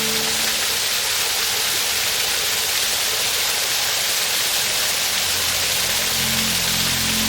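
Waterfall rushing: a steady, even hiss of falling water. Soft background music fades out just after the start and comes back in faintly over the last two seconds.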